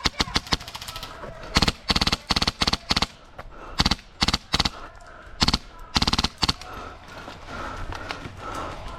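Airsoft guns firing in short bursts of rapid shots, several bursts in quick succession in the first seconds, then scattered single bursts and a few fainter shots.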